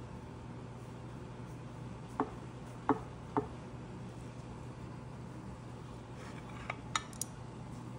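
A metal spatula clicking against the bottom and sides of a glass baking dish while cutting through a pan of brownies: three sharp taps a little over two seconds in, then a quicker cluster of taps near the end, over a faint steady hum.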